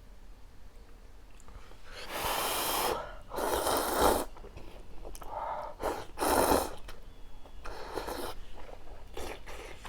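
Ramyun noodles being slurped in a run of about six or seven sharp, airy pulls, starting about two seconds in.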